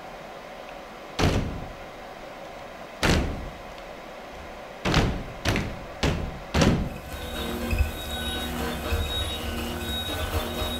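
Six heavy booming hits from a contemporary dance performance's electronic score, spaced irregularly and ringing out after each, then a dense electronic soundscape of steady drones and tones sets in about seven seconds in.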